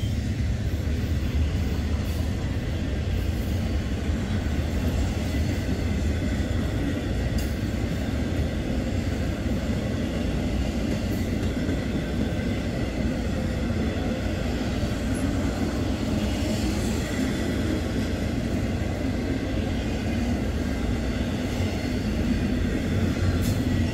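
Intermodal freight train rolling past close by: the steady rumble of trailer-on-flatcar and double-stack container cars running on the rails.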